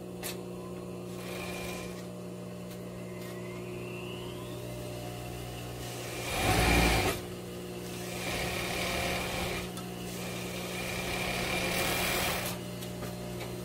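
Industrial overlock (serger) sewing machine stitching in three spells in the second half, the first short and loudest, the next two longer and softer, over a steady low hum.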